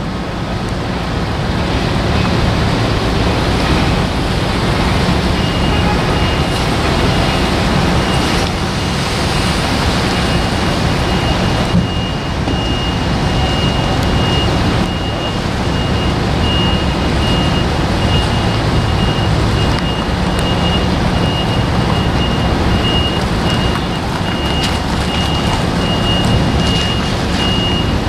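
Steady outdoor vehicle and traffic noise, a constant rumble. About five seconds in a thin, high, steady tone joins it and holds, now and then breaking up.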